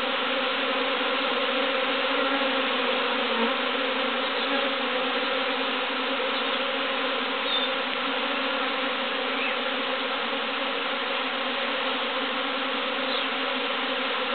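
Steady hum of a honeybee swarm, many bees buzzing together in several pitches without a break as the swarm clusters and flies around a hive.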